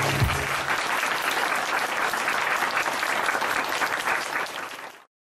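Audience applauding at the end of a live song, as the band's last low note dies away in the first second. The clapping stays steady, then fades and cuts off about five seconds in.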